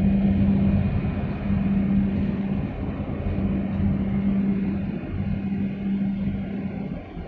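Steady low engine hum of a boat, with a rough rushing of wind and water underneath; the hum dips briefly a few times.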